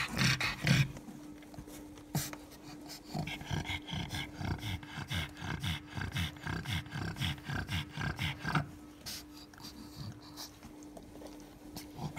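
Pregnant pug panting quickly and evenly, about three breaths a second, for several seconds before stopping, the panting of a bitch in labour. A few handling knocks come near the start.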